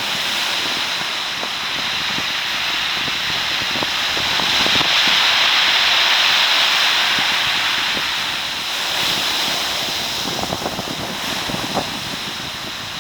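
Storm surf surging onto a beach of round cobbles, swelling to a peak about five seconds in and then easing off, with scattered clicks of stones knocking together.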